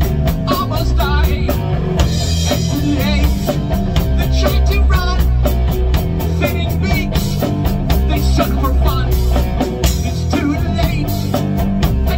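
A rock band playing live: electric guitar, bass guitar and a drum kit with cymbals. A man sings into the microphone over them. The music is loud and steady, with a driving drum beat.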